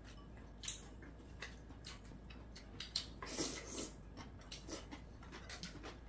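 Quiet eating sounds: scattered soft clicks of chopsticks and mouth sounds from chewing, with a short slurp from a bowl of soup about three and a half seconds in.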